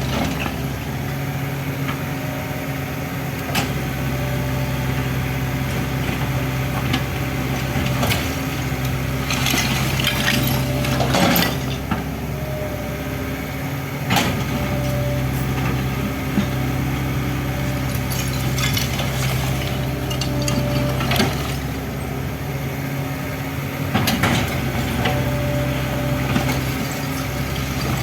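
Excavator's diesel engine running steadily, with repeated knocks and crunches of demolition debris breaking and falling, heaviest about ten seconds in and again near the end.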